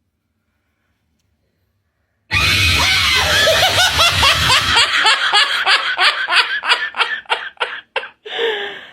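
After about two seconds of silence, laughter starts suddenly and loudly: quick repeated "ha" pulses, about four a second, that thin out and fade near the end.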